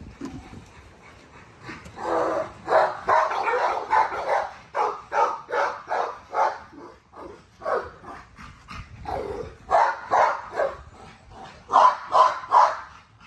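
American bully puppies barking and yipping in a run of short barks, loudest in a burst of three near the end.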